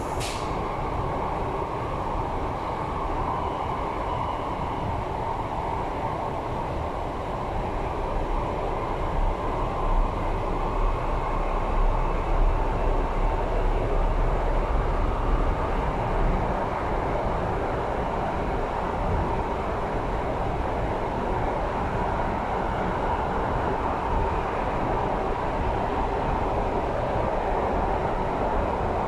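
Running noise of an MTR East Rail line R-Train electric multiple unit, heard inside the carriage by the doors: a steady rumble with a hum. It grows a little louder for several seconds around the middle.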